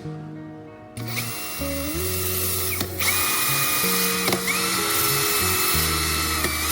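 A small power tool runs with a loud grinding hiss, its whine dipping and rising in pitch several times, over background music with a steady bass line.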